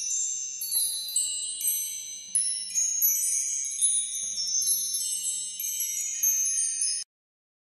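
Chimes ringing: many high, bright tones struck one after another and overlapping as they ring, until they cut off suddenly about seven seconds in.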